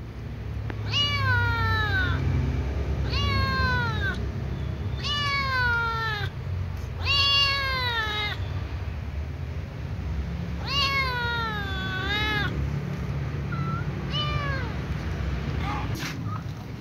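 Ginger kitten meowing over and over, begging to be fed: about six long meows a couple of seconds apart, each rising then falling in pitch, over a low steady rumble.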